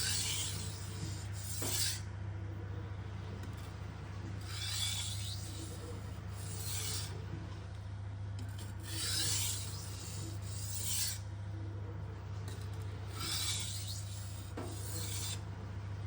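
Knife blade drawn across a sharpening stone in about eight short, light scraping strokes, mostly in pairs with pauses between them: deburring the edge.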